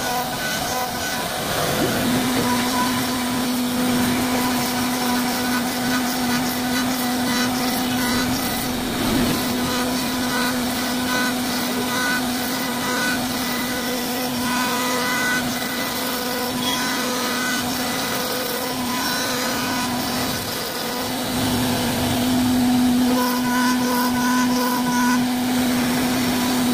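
CNC wood router spindle running at high speed as the bit cuts wood, a steady hum over a continuous hiss of cutting. The hum breaks off briefly about twenty seconds in, then returns.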